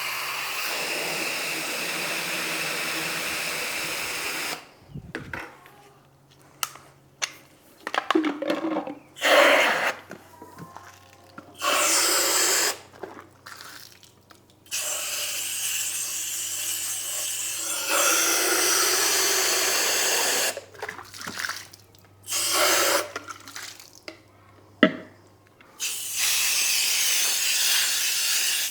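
Garden-hose foam gun spraying water to flush the leftover soap out of it. One long spray to start, then a string of shorter bursts with quiet gaps as the trigger is squeezed and let go. A sharp click comes about 25 seconds in.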